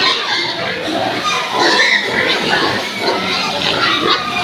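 A group of pigs calling together, overlapping squeals with no pause.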